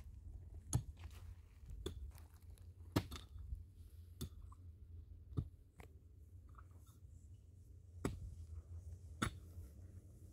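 A series of sharp knocks, about a second apart with a pause of a couple of seconds in the middle, seven in all. A low, steady rumble runs underneath.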